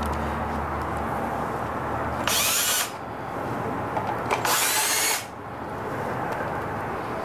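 Cordless drill/driver backing out a Phillips screw from under the grinder's foot: two short runs of the motor, about two seconds apart, the second a little longer.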